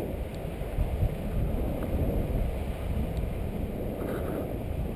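Steady wind buffeting the action camera's microphone from the airflow of a tandem paraglider in flight, mostly low in pitch.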